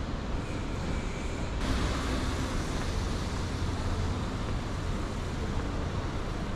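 City street traffic: a steady low rumble of passing vehicles, with a louder hiss that comes in suddenly about one and a half seconds in and holds.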